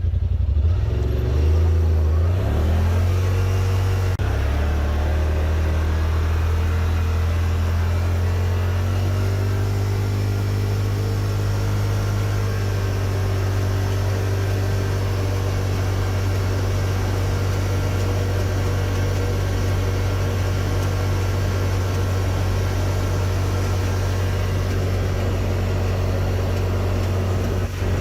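Yamaha RMAX4 1000 side-by-side under way: the engine pitch rises over the first few seconds as it accelerates, then holds steady at cruising speed. It is being held around the 30–36 mph range where the owner hears a clank from the middle of the machine.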